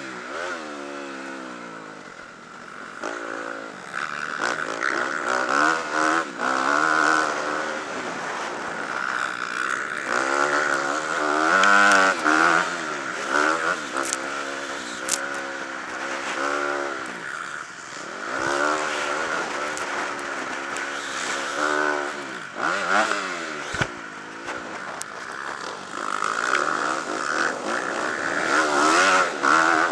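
Motocross bike engine heard from on board, revving hard and easing off again and again as the rider accelerates and shifts, its pitch climbing and dropping every few seconds, with a few sharp knocks from the rough track.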